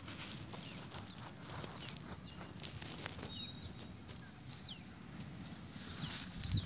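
Small birds chirping outdoors: repeated quick, falling chirps and a couple of short level whistles over a soft rural background, with a low bump near the end.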